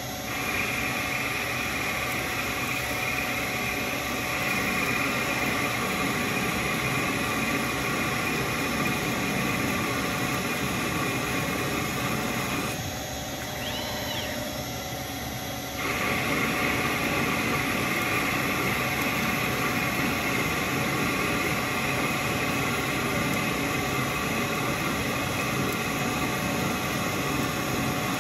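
Shopmaster Mill Turn running as a CNC lathe, turning 1-inch aluminum rod dry: the spindle runs with a steady high hiss from the cut. About 13 seconds in the sound eases for roughly three seconds, with a brief rising-and-falling whine, then the steady cutting sound returns.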